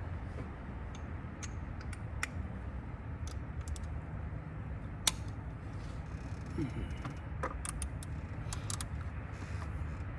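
Scattered light clicks and taps of an oil filter and its housing cap being handled and seated, one sharper click about five seconds in, over a steady low background rumble.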